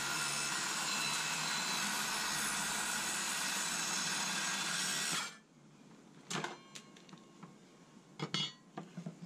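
Evolution circular saw running steadily, cutting off suddenly about five seconds in. After that, a few light knocks and clicks of the saw and board being handled.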